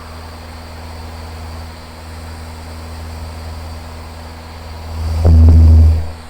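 Steady low drone of a Van's RV-7's engine and propeller in flight, heard through the cockpit intercom microphone. About five seconds in, a much louder burst lasting about a second swells over the drone, then drops back.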